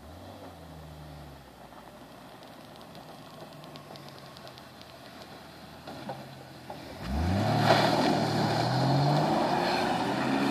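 Chevrolet Trailblazer SUV engine running at a low steady note, then about seven seconds in it revs up sharply and stays loud, its pitch rising and falling as the throttle is worked.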